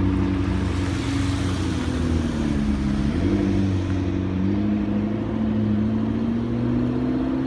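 McLaren MP4-12C's twin-turbo V8 running at low speed while cruising. Its pitch dips about three seconds in, then climbs steadily again.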